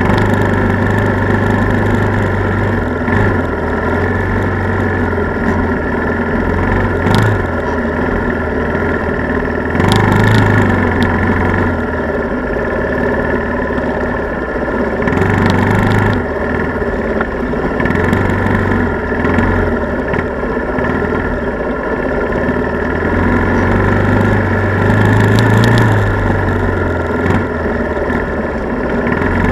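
ATV engine running as the quad rides along a snowy trail, its note rising and falling every few seconds with the throttle, with a few short knocks along the way.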